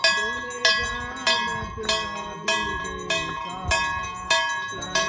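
Hanging metal temple bells rung by hand, struck steadily almost twice a second, about nine strikes, each ring carrying on into the next.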